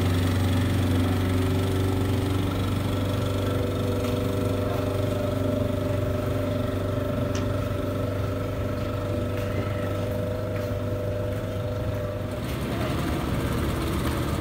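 Twin Yamaha outboard motors on a small speedboat running under way, a steady drone with water wash. The engine note changes about twelve seconds in.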